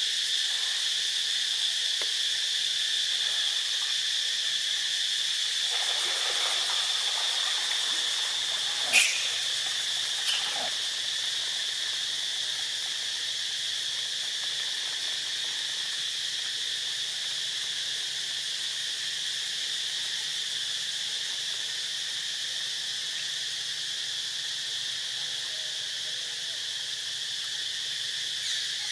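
Steady, high-pitched insect chorus droning without a break. A single sharp click stands out about nine seconds in, with a softer one a second or so later.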